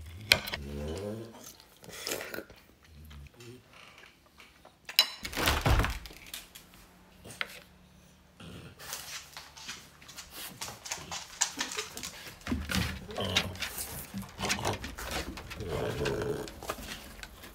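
Sounds from a French bulldog, mixed with a person's voice at times and scattered clicks and knocks.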